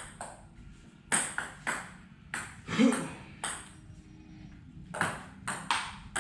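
Table tennis ball clicking off the bats and the table in a rally: sharp single clicks about every half second, with a short lull a little after the middle.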